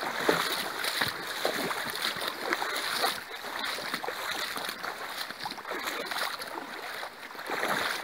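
River water rushing over a shallow gravel bed, with many small splashes close by.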